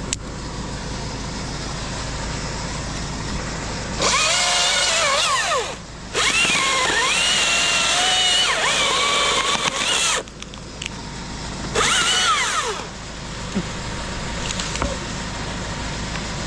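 Chainsaw cutting through a tree branch, revved up in three bursts of cutting: a short one, a long one of about four seconds, then a brief one. The pitch rises and falls as the chain bites.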